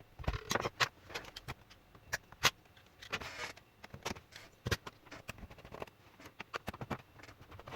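Plastic laptop casing parts being handled and worked on: a run of irregular sharp clicks and taps, with a short scraping rub about three seconds in.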